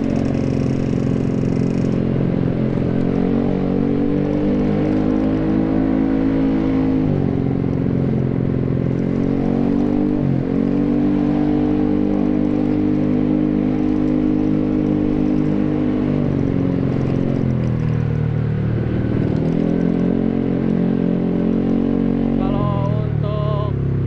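Bored-up Yamaha X-Ride scooter's single-cylinder engine breathing through a Tekamoto TriOval aftermarket silencer, heard from the saddle while riding. The engine note climbs and falls several times as the throttle is opened and eased off.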